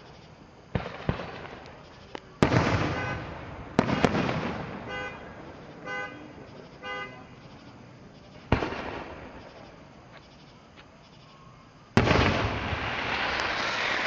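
Aerial fireworks going off: a string of sharp bangs, each with a fading rumble, the loudest about two and a half and twelve seconds in. In the middle come three short tooting tones, and after the last bang a dense rush of noise carries on to the end.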